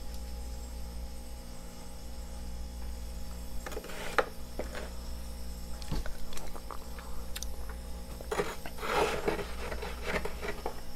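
Fingernails scraping and crunching thick freezer frost: a few short crackly bursts about four seconds in, then a longer, louder spell of crunching near the end, over a steady low hum.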